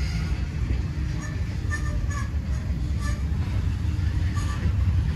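Freight train rolling past, a steady low rumble with short high squeaks scattered through it.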